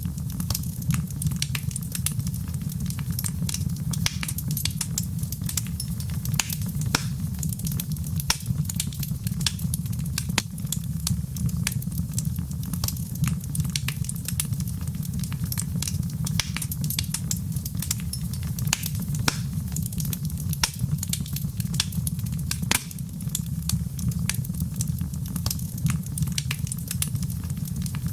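Wood fire burning in a fireplace, crackling with frequent irregular sharp pops over a steady low rumble.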